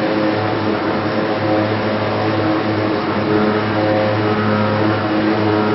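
Linear-motor high-speed milling machine cutting a pocket into a metal block with a small end mill. The spindle and cut give a steady noise with tones that shift in pitch every second or so as the tool changes direction.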